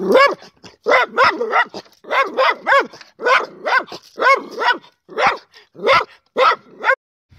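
A dog barking over and over behind a wooden fence, about two short barks a second, some in quick pairs.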